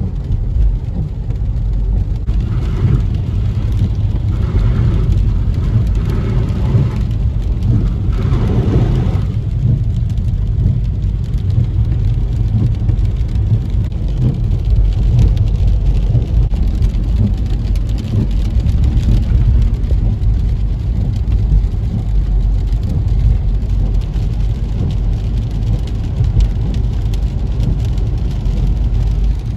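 Car driving on the road, heard from inside the cabin: a steady, loud low rumble of tyres and engine with a hiss of road noise.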